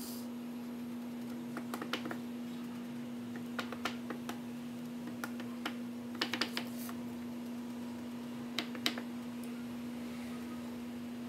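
Hands pressing a biscuit-crumb base down into a metal springform pan: scattered light clicks and taps in small clusters as fingers and nails work the crumbs and touch the tin. A steady low hum runs underneath.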